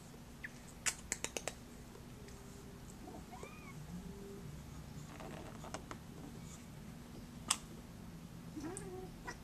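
Domestic cats giving a few short, faint meows, one arching up and down in pitch about three and a half seconds in and another near the end. A quick run of four sharp clicks comes about a second in.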